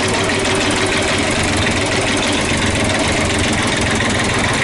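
Yacht's inboard marine diesel engine running steadily and loudly with a fast, even knock, heard close up in its open engine box.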